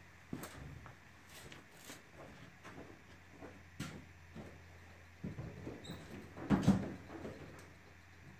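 Footsteps and scattered light knocks and clicks of someone moving around a ute, with a louder cluster of knocks about six and a half seconds in, over a faint steady low hum.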